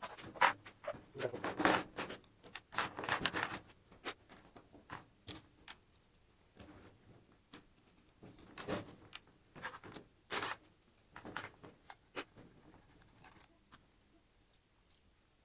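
Hands handling a PT-60 plasma cutter torch and its hose: irregular clicks, rustles and scrapes, densest in the first few seconds, then scattered clicks.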